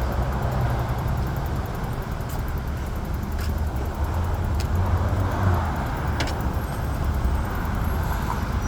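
Steady road traffic noise, with car engines and tyres making a continuous low rumble.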